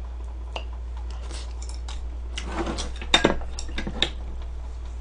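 Chopsticks and a bowl clicking and clattering as food is handled, with a quick cluster of sharp clicks about three seconds in and another near four seconds.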